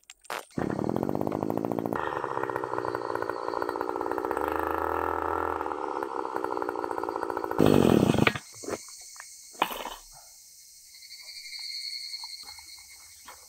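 A brush cutter's small petrol engine is pull-started, catches about half a second in and runs steadily, then is revved up briefly near the eight-second mark and cut off suddenly. It is running with a wobble that the operator traces to the cutting blade sitting off-centre on its shaft. A few small clicks follow as the blade is handled.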